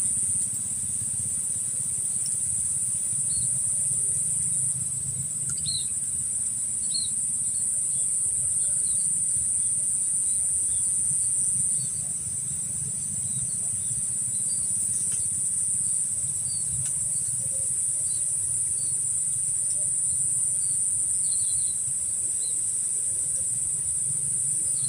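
Steady high-pitched insect drone, with short bird chirps scattered through it over a low background rumble.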